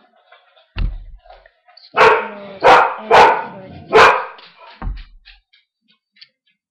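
A dog barking four times in quick succession, loud, starting about two seconds in. There is a low thump a little before the barks and another just after them.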